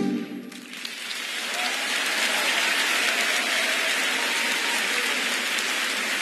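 Audience applauding at the end of a song, swelling up within the first second or two as the last chord dies away, then holding steady.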